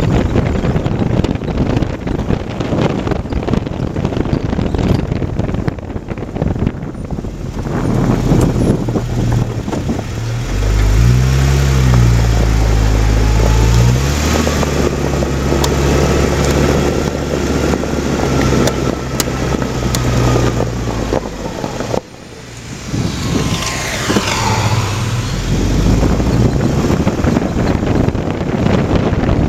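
Car on the move: steady road and wind noise, with the engine running and changing pitch near the middle, then holding steady. A brief falling whine follows later on.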